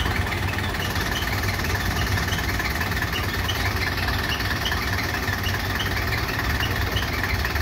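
Truck engine idling steadily, with a steady high tone above it and faint short chirps about twice a second.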